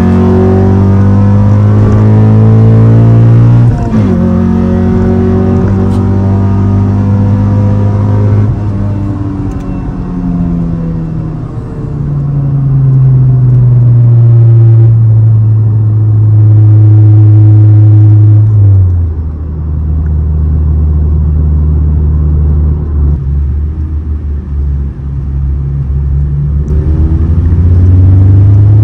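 Engine and aftermarket downpipe-and-exhaust note of a 9th-generation Honda Civic Si's 2.4-litre K24 four-cylinder, heard from inside the cabin while it is driven hard. The engine note climbs, drops sharply about four seconds in as at an upshift, and climbs again. It then falls away, holds a steady drone for several seconds, drops low, and rises again under acceleration near the end.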